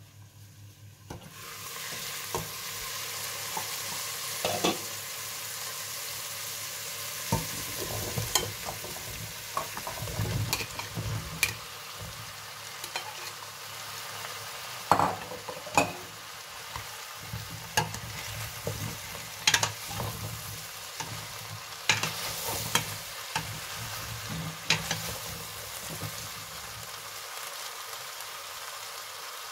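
Diced vegetables sizzling in butter in a stainless steel pot, starting about a second in, with repeated sharp knocks and scrapes as a spoon stirs them and chunks of pumpkin are added.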